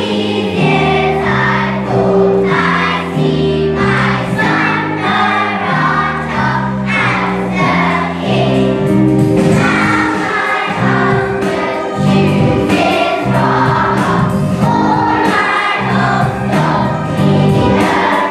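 A choir singing a song over instrumental accompaniment, with a moving bass line and a steady beat.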